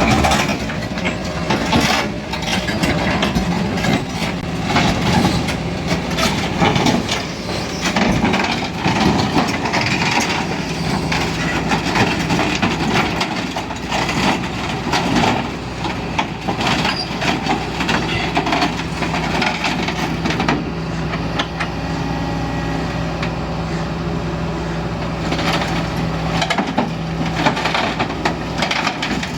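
Kobelco excavator's diesel engine running steadily, with frequent knocks and metallic clatter from the working machine.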